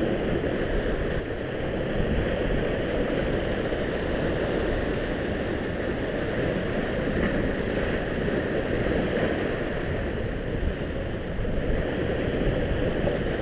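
Steady wash of sea waves against shore rocks, mixed with wind on the microphone.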